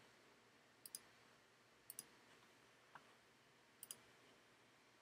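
Faint clicks of a computer mouse over near silence: three quick double clicks and one single click in between.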